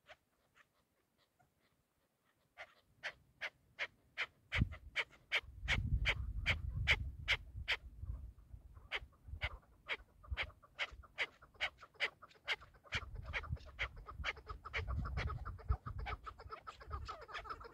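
Chukar partridge calling: a long run of sharp, evenly spaced chucks, about three a second, with a short break partway through and quickening near the end. A low rumble runs underneath.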